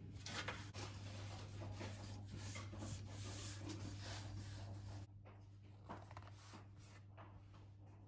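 Faint rubbing and soft pressing of hands shaping and pinching yeast-dough pirozhki, over a steady low hum; the handling noise drops away about five seconds in.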